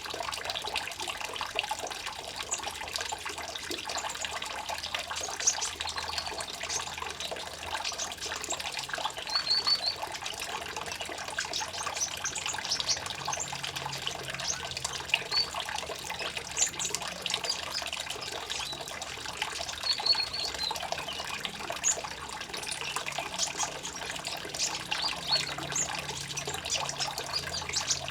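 Steady trickling, running water, with short high chirps scattered over it.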